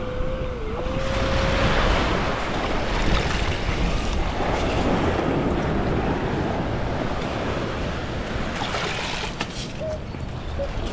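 Surf washing in with wind buffeting the microphone. During the first two seconds a metal detector sounds one held mid-pitched tone that dips briefly, and near the end it gives two short beeps.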